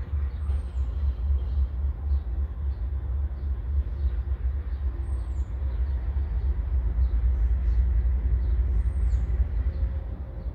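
A steady low rumble, with a short high chirp that falls in pitch, heard three times.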